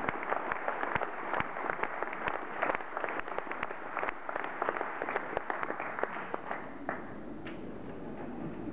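Audience applauding, dense irregular clapping that thins out about six seconds in and gives way to low room noise.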